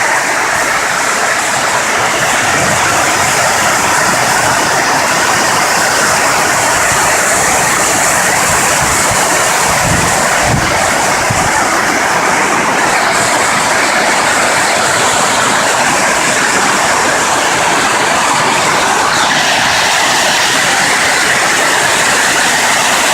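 Heavy rain pouring down on the roof of a large shed: a loud, steady racket, with a couple of faint low thumps about ten seconds in.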